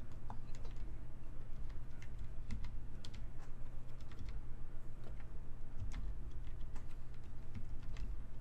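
Typing on a mechanical keyboard with the keycaps removed: fingertips pressing the bare switch stems, giving a rapid, irregular run of clicks.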